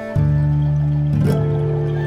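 Background music: soft, sustained chords with a deep low note that comes in a fraction of a second in, and a change of chord about a second later.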